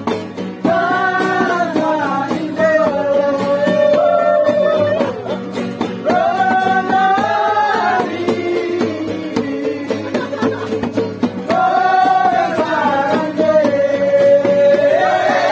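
Men singing a song together to a strummed acoustic guitar, the melody carried in long held notes.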